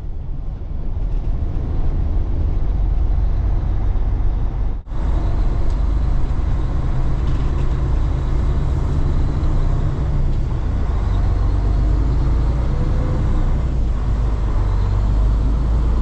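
Freightliner semi-truck's diesel engine running under way, a steady low drone with road noise, heard from inside the cab. There is a brief cut in the sound about five seconds in.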